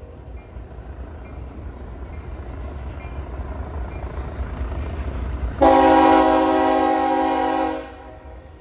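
Approaching diesel locomotive, its low rumble building. Then its horn sounds one long, loud blast of about two seconds, several notes at once, which cuts off near the end.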